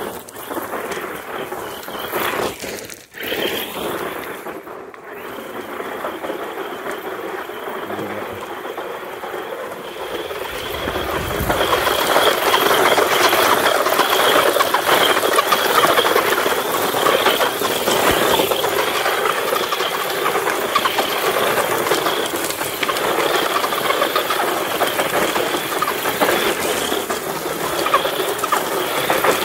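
Electric RC truck driving and spinning donuts on gravel: its motor and drivetrain whine while the tyres scatter loose stones. It gets louder about eleven seconds in as it comes close.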